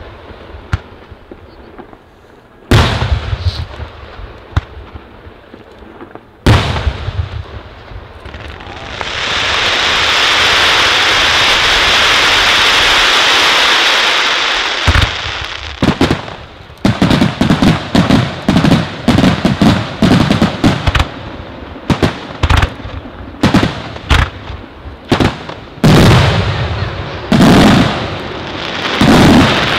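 Fireworks display: two loud single bangs in the first seconds, then about six seconds of steady loud hissing. From about halfway on comes a rapid, uneven run of sharp bangs and deep booms, several a second.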